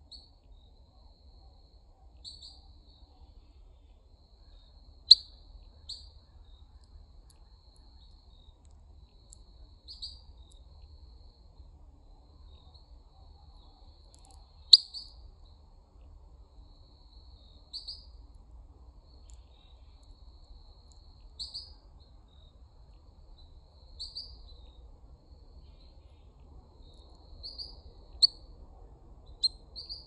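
Northern cardinal giving short, sharp chip calls every couple of seconds, with the loudest chips about five seconds in, about fifteen seconds in and near the end. A faint steady insect-like trill runs underneath.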